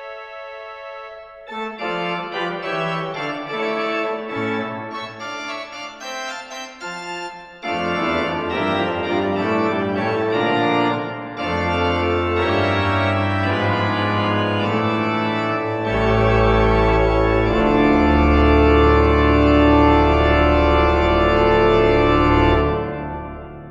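Hauptwerk virtual pipe organ, sampled from the Father Willis organ of Hereford Cathedral, playing the closing bars of a Baroque noël. It begins softly, grows fuller as deep pedal bass comes in, and builds to a loud full-organ ending whose final chord is held and then fades away near the end.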